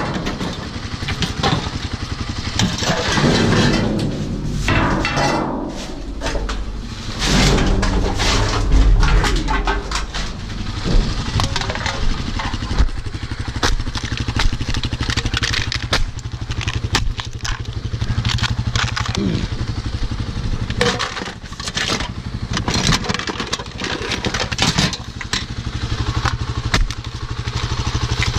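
Motorcycle engine idling steadily, with repeated clanks and clatter of scrap metal dropped into plastic bins and aluminium cans gathered off concrete.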